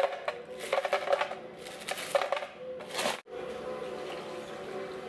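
Frozen strawberries dropping into a plastic blender jar, in three short rattling bursts about a second apart, over a steady humming tone.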